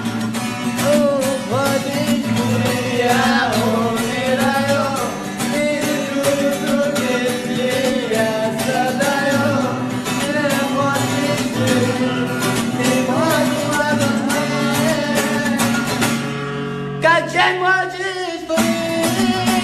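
A song playing: a melody line, sung or played, over steady accompaniment with a regular beat. There is a brief break about 17 seconds in, after which the music picks up again.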